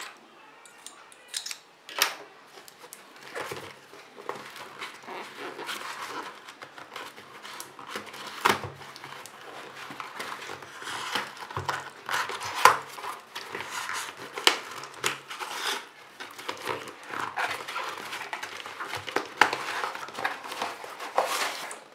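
A smartphone box being unwrapped and opened: crinkling plastic wrap and cardboard rustling, with many sharp clicks and taps throughout.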